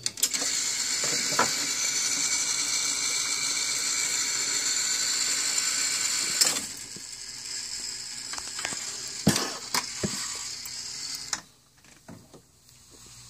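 Rowe record jukebox's changer mechanism cycling to play a record: a steady mechanical whir from the turning record magazine for about six and a half seconds, then a quieter stretch with several sharp clicks and clunks.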